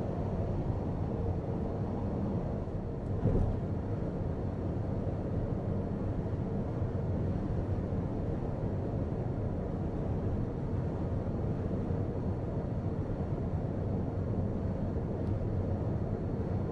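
Steady tyre and road noise inside the cabin of a Mitsubishi Outlander PHEV cruising on an expressway, with a single short bump about three seconds in.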